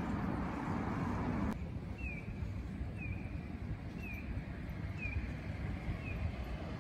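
A pedestrian-crossing audible signal: short, identical, falling high chirps about once a second, five of them, over a low street rumble. It is preceded for the first second and a half by steadier, louder outdoor traffic noise that stops abruptly.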